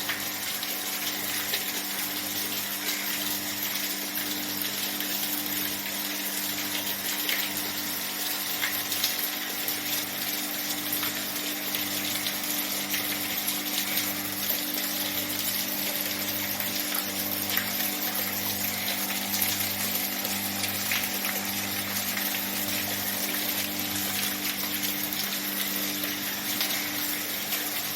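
Water of a small homemade garden fountain falling and splashing steadily, over a constant low hum from its electric pump.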